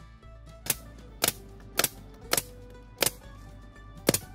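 DeWalt pneumatic nail gun firing nails into wooden trim: six sharp shots, mostly about half a second apart, with background guitar music.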